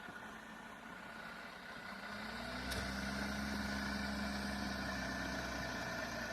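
Heavy vehicle engine running in the snow, revving up about two seconds in and holding at higher revs, then easing back near the end. A faint steady high tone runs underneath.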